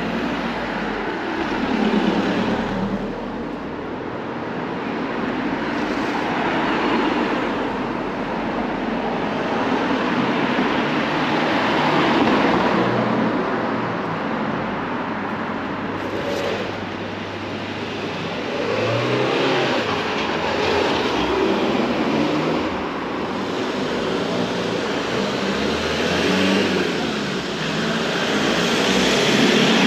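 Cars driving past on a narrow street, the traffic noise swelling and fading several times as vehicles pass close by.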